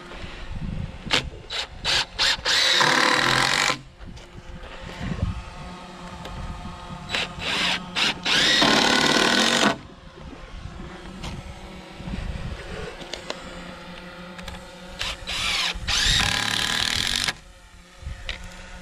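DeWalt cordless impact driver driving screws into pressure-treated timber. It gives several quick trigger blips, then three longer runs of about a second and a half each, spaced through the stretch with pauses between.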